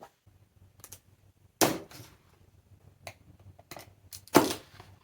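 Cardboard shipping box being opened by hand: a series of sharp tearing cracks, the two loudest about a second and a half in and near the end.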